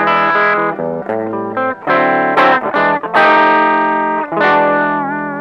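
Electric guitar played through a TC Electronic Dark Matter distortion pedal: distorted chords and single notes struck one after another, with a wavering, vibrato note near the end.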